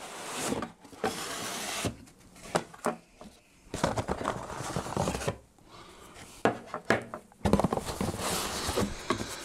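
Cardboard packaging being handled: an inner cardboard insert sliding and scraping against the carton, with rustling and a few light knocks, in several spells with short pauses.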